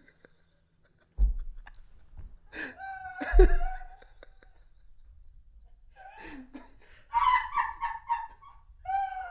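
A man and a woman laughing hard in bursts, after about a second of silence, with low thumps about a second in and again at the loudest laugh a little past three seconds.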